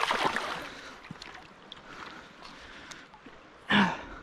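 Splashing as a released trout kicks free of the hand in shallow river water, dying down within the first second into faint running water. A short loud burst comes near the end.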